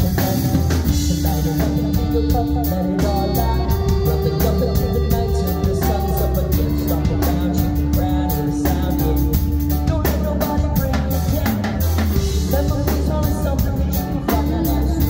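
Live rock band playing loudly: a drum kit keeps a steady beat under bass guitar, electric guitar and keyboards, with long held notes over the groove.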